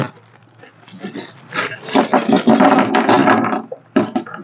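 Clear plastic bag of mounting hardware being torn open and handled, crinkling densely for about two seconds, with a sharp click near the end.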